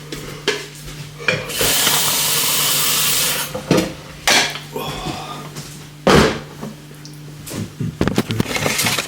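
Crockery and kitchen things handled while making coffee: a run of clinks and knocks of cups and dishes, with an even rushing hiss for about two seconds near the start, over a steady low hum.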